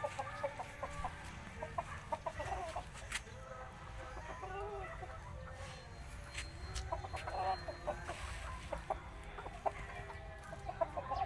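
Black Australorp chickens clucking in short runs of quick notes as they forage and peck, with a low steady rumble underneath.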